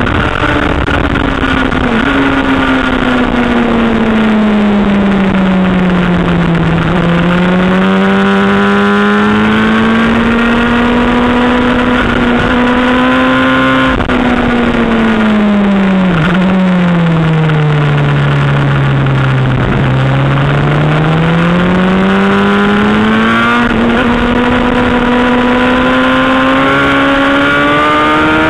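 Honda CBR600 inline-four engine at racing speed. Its pitch falls over the first seven seconds, climbs again, then drops sharply twice around the middle on downshifts to its lowest point. It then rises steadily as the bike accelerates back up through the revs.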